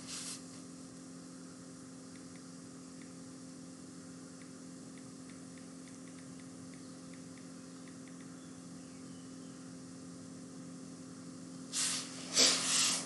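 Steady electrical hum and hiss from the recording's background, with a brief burst of noise near the end.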